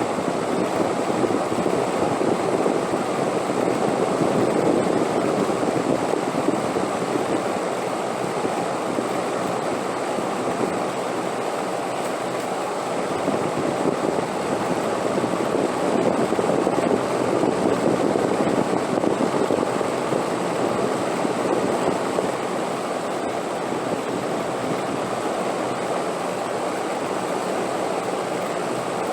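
Wind blowing in a steady rush that swells into gusts and eases off again.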